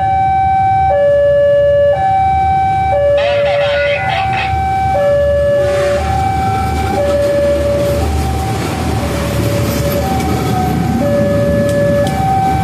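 Level-crossing electronic warning alarm alternating between two notes, each held about a second. From about five seconds in, a multiple tie tamper track machine rumbles past over the rails, partly covering the alarm. A short burst of noise comes about three seconds in.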